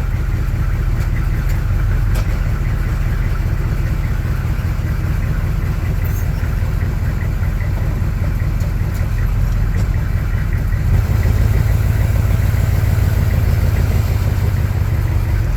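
Chevrolet K20 Suburban's 6.2-litre V8 diesel running steadily, a little louder from about eleven seconds in.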